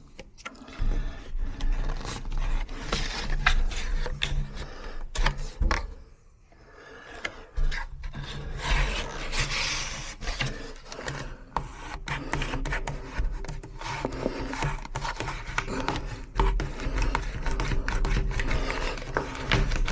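Hand tools rubbing, scraping and clicking against a wooden door as a tubular door latch is fitted, with a short lull about six seconds in.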